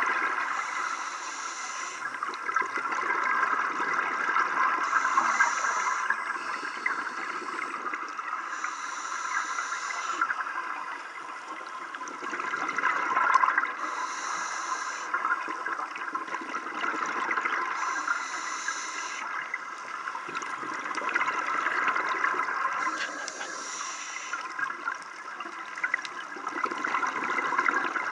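Scuba diver breathing through a regulator underwater: a hiss about every four to five seconds alternating with the rush of exhaled bubbles.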